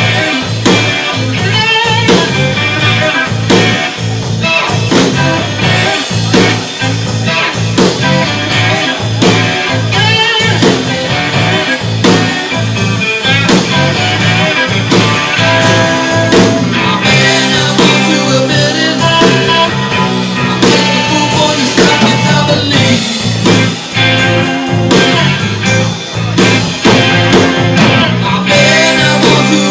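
Live blues-rock band playing loudly: electric guitar lines over a drum kit's steady beat.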